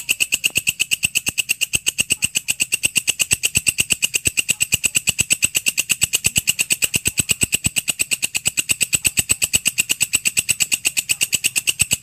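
Walang kecek (belalang kerik) insect calling: an even, unbroken train of rapid dry high-pitched chirps, about nine a second.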